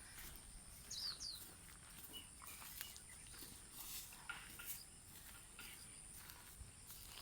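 Quiet outdoor garden ambience: a steady high-pitched insect drone, with a bird giving two quick downward chirps about a second in.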